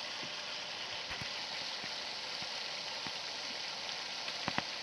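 Steady background hiss, with a couple of faint clicks near the end.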